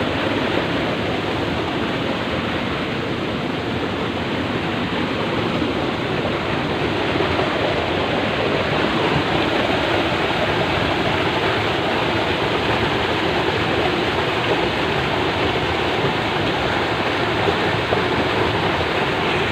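Water rushing steadily along a spring-fed channel, a loud, even, unbroken noise.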